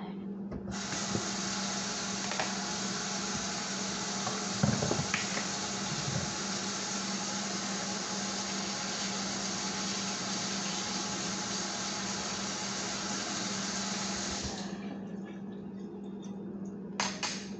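Kitchen tap running water into a sink, turned on about a second in and shut off sharply near the end, with a few brief clinks while a fork is washed under it.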